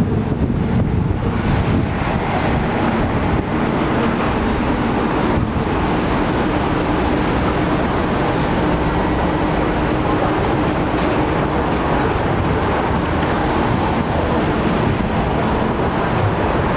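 Hong Kong double-decker electric tram running along its street rails: a steady rumble of wheels on track, with a faint steady hum.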